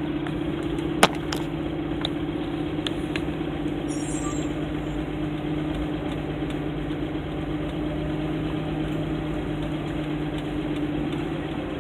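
Dodge A108 van's engine running steadily as the van creeps along at low speed, heard from inside the cab. A single sharp click about a second in.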